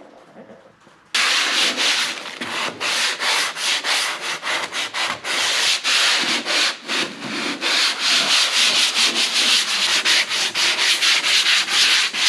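Hand sanding block rubbed back and forth over dried drywall joint compound at a corner bead, in quick rhythmic strokes, a few a second. It starts abruptly about a second in.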